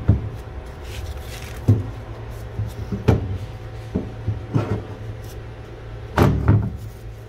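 Scattered sharp knocks and clunks of car parts and tools being handled, about six, with a louder cluster near the end, over a steady low hum.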